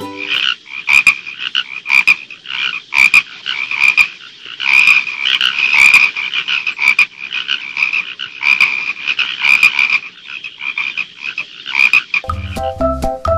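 Frog croaking sound effect, a rapid irregular run of short croaks, laid over origami croaking-frog paper toys whose mouths are being worked open and shut. The croaking stops near the end and marimba-like music begins.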